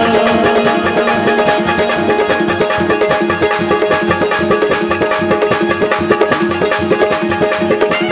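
Instrumental interlude of a Rajasthani devotional bhajan: a harmonium plays a melody in short, quick notes over a fast, steady beat of hand percussion and small cymbals (manjira).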